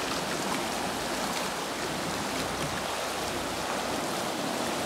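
Bhadra canal water boiling up out of the underground tunnel into a stone basin: a steady, churning rush of turbulent water.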